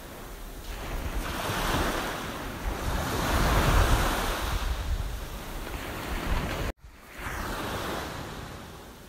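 Small waves washing up a coarse sand beach and drawing back, one long swell building and fading, with wind rumbling on the microphone. The sound cuts out abruptly about two-thirds of the way through, then the surf comes back more quietly.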